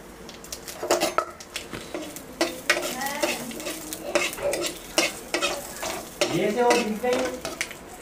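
Flat metal spatula scraping and clicking against a metal kadai while panch phoron and bay leaves sizzle in hot oil.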